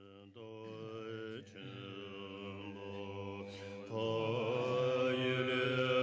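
Mantra chanting in long, held notes over a low drone. The chant breaks off briefly about a second and a half in and grows louder about four seconds in.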